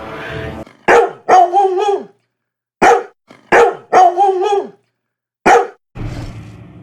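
Dog-like barks and yelps as a sound effect: a short yelp followed by a longer, drawn-out bark, the same pair repeated, then one more short yelp, each call separated by silence.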